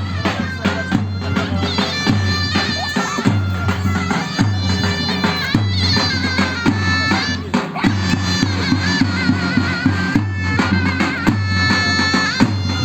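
Zurna and davul playing a traditional Turkish wrestling (pehlivan) tune: the double-reed zurna carries an ornamented melody over regular heavy beats of the davul drum.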